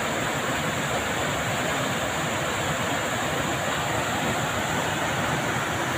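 River rapids rushing over rocks in a fast mountain stream: a steady, even whitewater noise.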